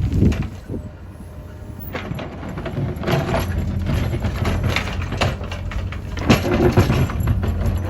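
Cat 432F2 backhoe loader's diesel engine running. It drops in level about half a second in and builds up again from about two seconds on, with several sharp knocks over it.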